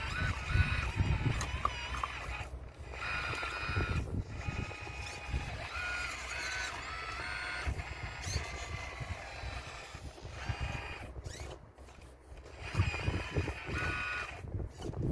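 Model RC excavator at work, its motors whining in steady tones that step up and down in pitch as the machine moves. Low knocks and scraping of stones sound under the whine.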